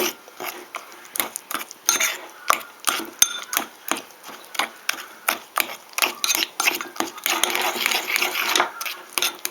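Utensil stirring honey into mashed banana in a bowl, clicking against the bowl about twice a second, with a stretch of quicker, steady scraping near the end.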